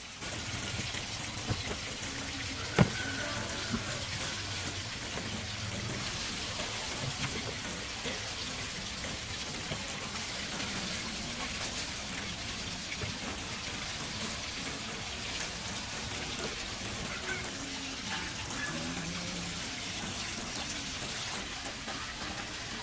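Steady hiss of running water from a small stream, with one sharp click about three seconds in.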